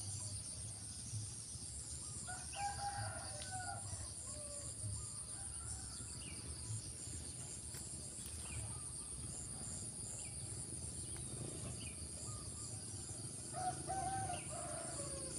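A rooster crowing twice, about ten seconds apart, each crow falling in pitch at its end, over a steady high-pitched insect drone.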